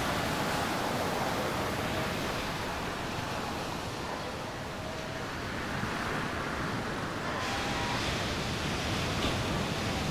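Ocean surf breaking and spraying over coastal rocks: a continuous rush of waves. It eases slightly midway and swells again about three-quarters of the way through.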